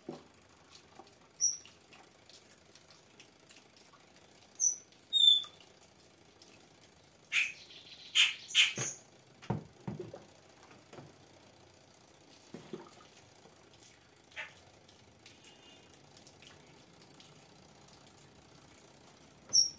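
Thick homemade liquid soap being poured from a plastic jug into a plastic bottle: soft, scattered glugs and plastic handling noises, loudest in a cluster about seven to nine seconds in. A few short high chirps are heard as well.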